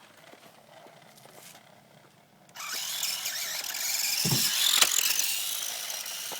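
Small electric motor of a remote-control toy dirt bike whining at full throttle, starting suddenly about two and a half seconds in, its pitch wavering. Two low knocks follow about a second and a half later.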